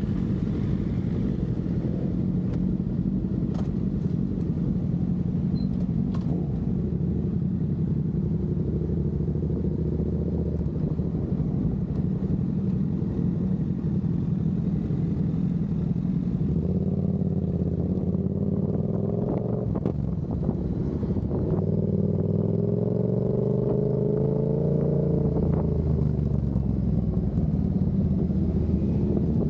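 Sport motorcycle engines running at low speed as the bikes ride off. The pitch climbs as they accelerate about halfway through, eases, then rises again near the end.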